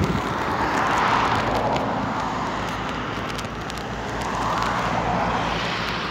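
Two cars passing on a road, their tyre and engine noise swelling and fading, the first about a second in and the second about five seconds in.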